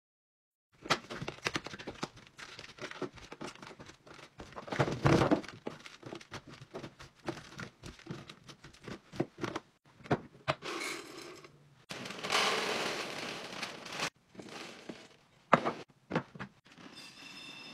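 Food containers and packaging being handled and set down while restocking a fridge: a busy run of thunks, clicks and plastic crinkling after about a second of silence, with a longer rustle partway through and a couple of sharp knocks near the end.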